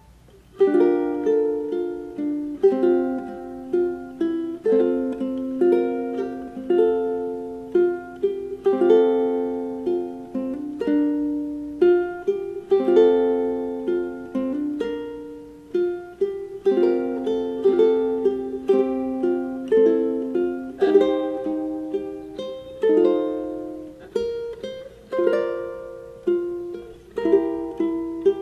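Locomango TU-300s solid-top ukulele played solo: chords and single notes plucked in an even rhythm, each ringing and fading. It starts about half a second in after a short pause.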